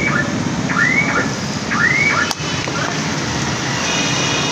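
Batter deep-frying in a wide pan of hot oil, a steady sizzle mixed with street traffic. Three rising-then-falling chirps about a second apart sound in the first two seconds, and a vehicle horn toots near the end.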